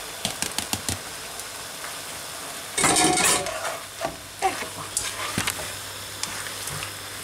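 Drained noodles tipped into a frying pan of shrimp and egg and tossed with a plastic spatula: light knocks and scraping over a sizzle, with a louder burst about three seconds in.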